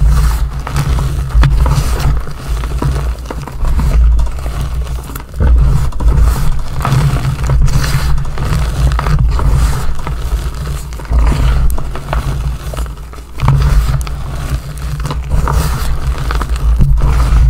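Hands crushing and smearing powdery reformed gym chalk on a hard surface: crisp crunching and scraping with many fine crackles, over a deep low rumble that comes and goes.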